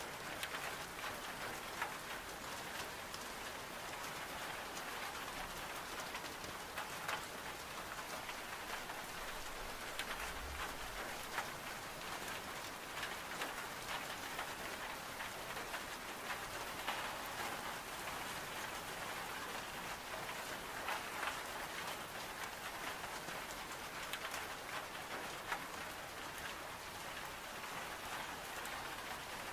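Steady rain on window glass: an even, unbroken hiss of rain with many small sharp ticks scattered through it.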